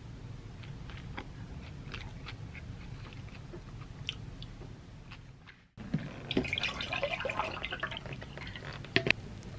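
Close-up chewing of a pita sandwich, with faint scattered clicks of the mouth and food. After a sudden break, water is poured from a plastic bottle into a mug, a busier trickling and splashing sound, with a couple of sharp clicks near the end.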